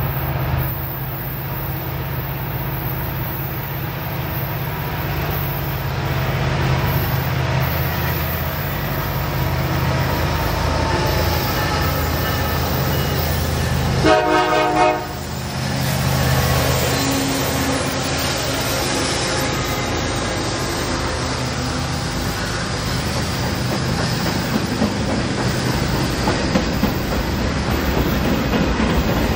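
CN diesel locomotives running by with a steady low rumble and wheels on the rails. About halfway through comes one short blast of the locomotive horn, a chord of several tones.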